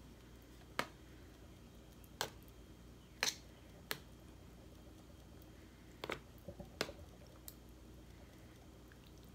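Metal fork tapping and scraping against a disposable aluminium foil pan while spreading tomato sauce over spaghetti: scattered sharp clicks, a few of them bunched together about six seconds in.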